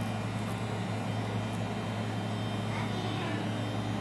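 Steady hum of an electric motor and fan with an even rush of air.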